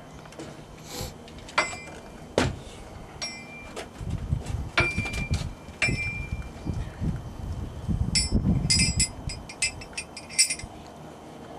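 Metal ratchet-strap buckle being handled, clinking and clicking with short metallic rings, with low scuffing and rumbling from handling the strap. A quick run of ratchet clicks comes near the end.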